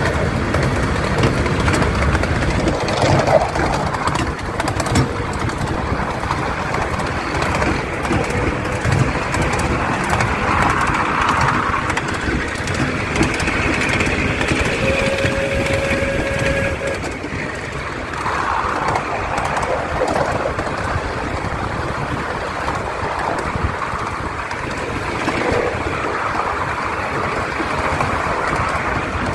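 Miniature steam train on the move, heard from a passenger car: a continuous rolling clatter of wheels on the small-gauge track, with a brief steady tone about halfway through.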